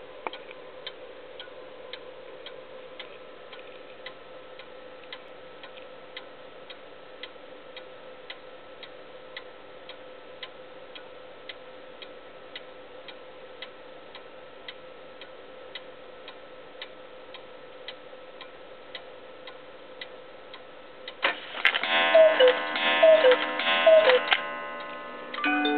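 Black Forest cuckoo clock ticking quickly and evenly, about two ticks a second. About 21 seconds in, the striking works whir into motion and the cuckoo calls three times, two falling notes each, amid ringing and clatter from the movement, striking three o'clock.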